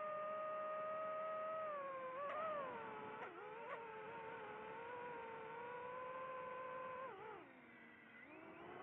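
DJI FPV drone's motors and propellers whining with the throttle, a steady high pitch that wavers with a few sharp ticks, then drops low about seven seconds in as the throttle eases off and climbs again near the end.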